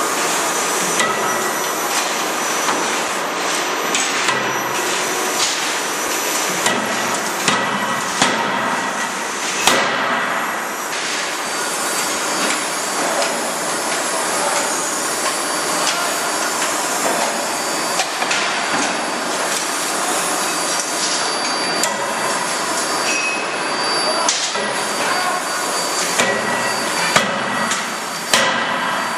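C92K-31.5KJ CNC forging hammer striking as it die-forges connecting rods: irregular sharp blows over a steady, dense shop din, with metallic ringing tones, the heaviest blow about ten seconds in.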